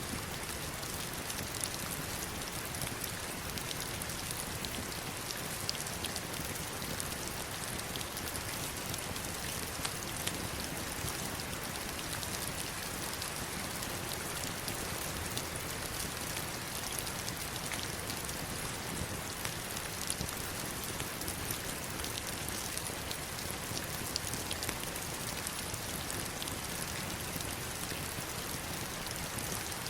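Heavy rain falling steadily on stones and water: a dense, even hiss with many small drop ticks.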